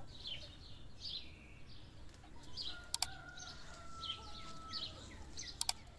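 Songbirds chirping over and over in short falling calls, while a rooster crows for about two seconds in the middle. Two or three sharp clicks stand out, one about three seconds in and a pair near the end.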